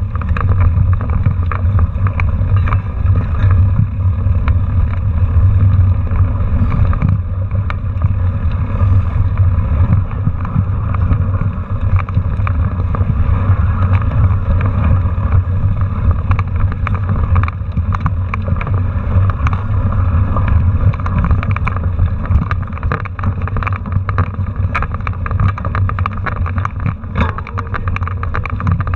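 Mountain bike riding over a rough, rocky dirt trail, heard through a handlebar-mounted camera: a steady low rumble of wind and vibration on the microphone, with frequent knocks and rattles as the bike jolts over rocks and ruts.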